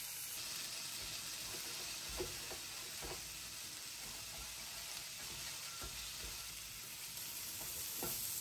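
Raw chicken, fish and oiled vegetables sizzling steadily on the hot granite stone and grill plate of a Silvercrest 1400 W raclette-grill, with a few light taps as metal tongs set food down.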